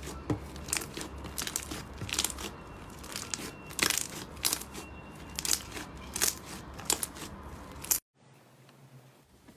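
Slime being squeezed and pressed by hand, giving an irregular run of sharp crackles and pops, several a second. It cuts off abruptly about eight seconds in, leaving only a faint sound.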